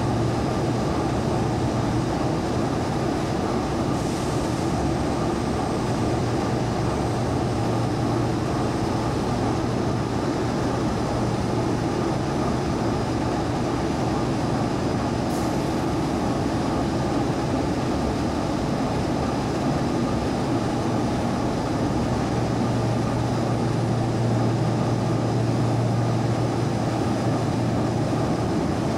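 Polypropylene staple fiber production line running: a steady machinery drone with a strong low hum and some fainter steady tones, unbroken throughout.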